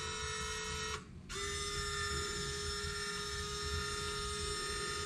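Small electric winch motor on a Traxxas TRX6 RC hauler, run from its key-fob remote, whining steadily as it drives the cable. It stops for a moment about a second in, then starts again at a slightly lower pitch.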